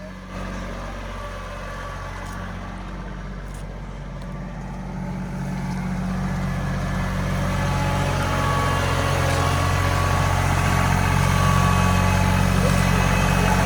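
Kubota L2502 compact tractor's diesel engine running steadily, getting gradually louder through the second half.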